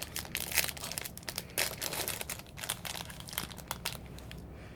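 Snack packaging crinkling and tearing as it is opened by hand: a run of irregular crackles that thin out near the end.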